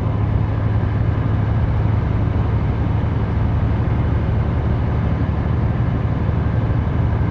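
Semi truck's diesel engine droning steadily, with road and tyre noise, heard inside the cab while cruising at about 35 mph on a snowy highway.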